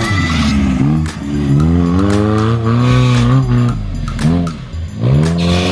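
Off-road buggy's engine revving hard in repeated surges, the pitch falling back and climbing again several times as it claws up a dirt hill, with a few sharp knocks from the chassis and tyres on rough ground.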